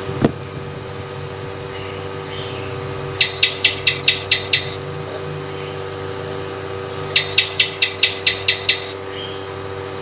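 Lizard chirping: two series of about eight rapid clicking chirps, some six a second, the first about three seconds in and the second about seven seconds in, over a steady hum.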